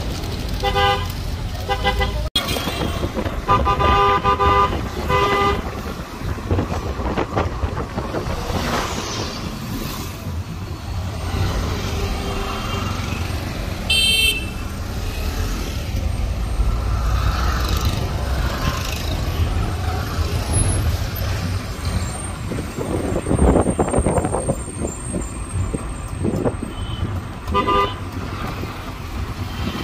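Street traffic heard from inside a moving car: steady road and engine rumble with repeated vehicle horn honks. Several short honks come in the first five seconds, a higher-pitched horn sounds about halfway through, and one more honk comes near the end.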